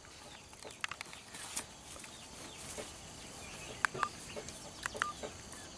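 Chicken clucking in short, scattered clucks, coming more often in the second half.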